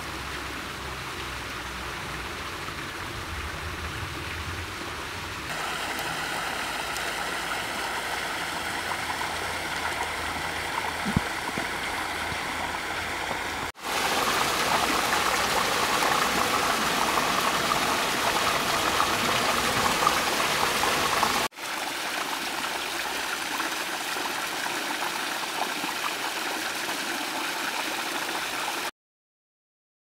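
Small waterfall cascading down a rocky chute: a steady rush of water that steps up in level about 5 seconds in, is loudest from about 14 to 21 seconds, and cuts off suddenly near the end.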